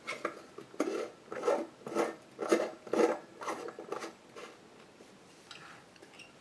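A glass light bulb being screwed into a porcelain lamp socket, its metal base grating in the threads with each twist, about two twists a second, stopping about four and a half seconds in.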